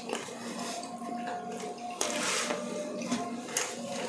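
Close-miked eating sounds: wet chewing and soft smacks and clicks of food being picked up and eaten by hand.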